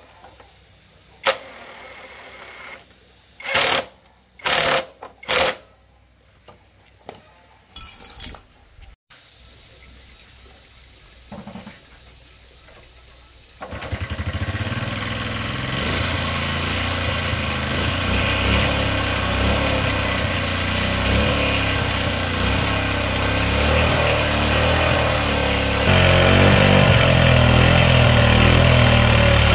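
A cordless impact driver runs in about five short bursts on the Cub 72 motorcycle's rear fittings. About halfway through, the Cub's small single-cylinder four-stroke engine is kick-started and keeps running steadily.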